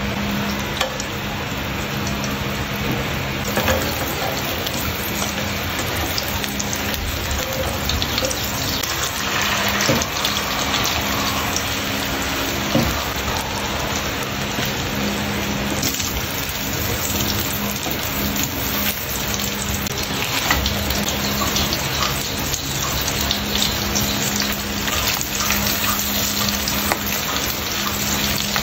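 Food frying in oil in a frying pan: a steady sizzle, with an occasional light knock.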